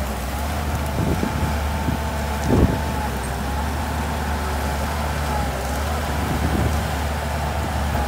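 Shantui DH17C2 bulldozer's diesel engine running steadily under work, a low hum with a thin high whine over it. A few dull thumps come through, the loudest about two and a half seconds in.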